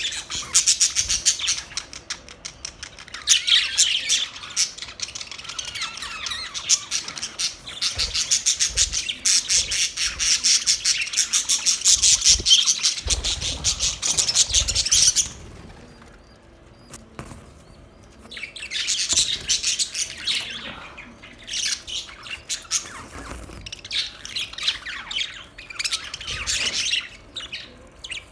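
Budgerigars chattering in fast, high chirps: a dense run for about fifteen seconds, then a brief lull and several shorter bursts of chatter.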